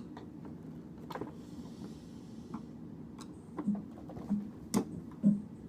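Scattered light clicks and knocks of handling, becoming more frequent in the second half, over a faint steady low hum.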